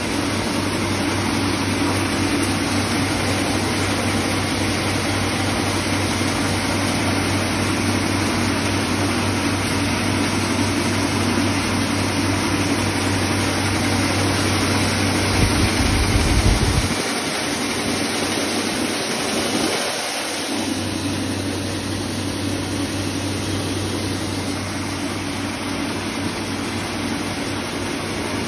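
Heavy-duty wheat cleaning and grinding machine running with a steady mechanical hum and hiss. A short, louder low rumble comes a little past halfway.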